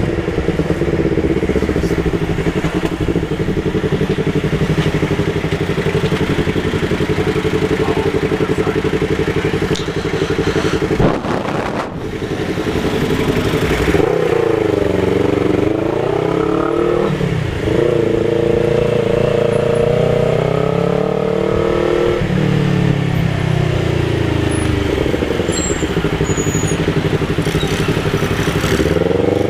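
Yamaha MT-03 motorcycle engine running through a Jeskap aftermarket exhaust with the dB killer removed, loud and open. The note holds steady for about the first ten seconds, then rises and falls in pitch several times through the second half as the bike is revved and accelerated.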